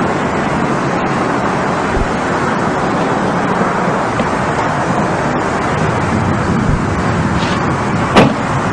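Steady rushing noise with no distinct pitch, even in level throughout, broken by one sharp click about eight seconds in.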